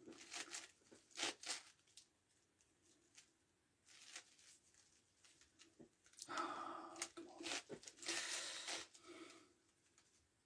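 Faint clicks and plastic scraping of a 9x9x9 Rubik's Cube's layers being turned: a few sharp clicks near the start, then two longer rasping runs of turns in the second half.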